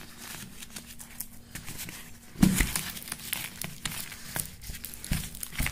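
A razor blade scraping and cutting the plastic strapping on a cardboard parcel, with crinkling and rustling as the box is handled. A heavier knock of the box about two and a half seconds in, and smaller knocks near the end.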